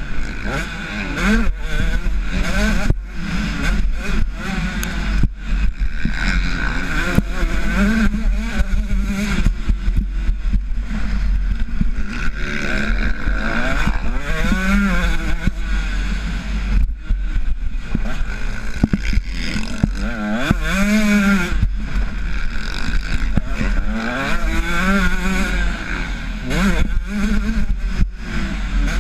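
Motocross dirt bike engine, ridden hard, revving up and down again and again as the throttle is opened and closed, over a steady low wind rumble on the microphone and scattered knocks.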